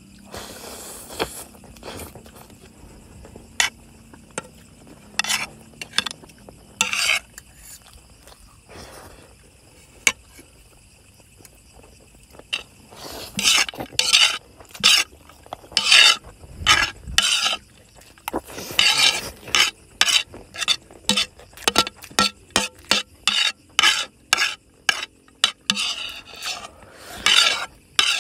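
Spoons and forks scraping and tapping against plates as two people eat, in short strokes that are sparse at first and come several times a second from about halfway through.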